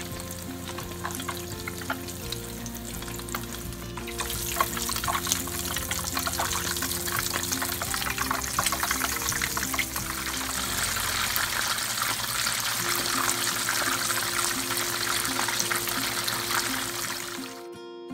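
Cheese empanadas deep-frying in a pan of hot oil: a dense crackling sizzle that grows louder about four seconds in and again around ten seconds in. Background music plays underneath.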